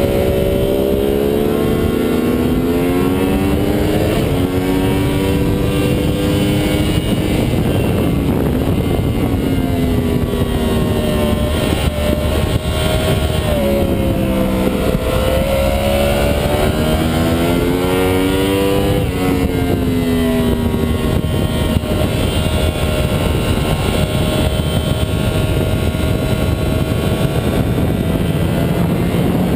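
2009 Yamaha R1's crossplane inline-four engine heard onboard at speed, its note rising under acceleration and falling as the bike slows for corners, several times over.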